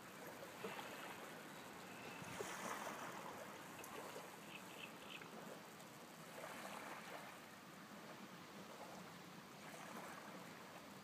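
Faint steady rush of wind and lapping lake water, with three short high peeps about four to five seconds in.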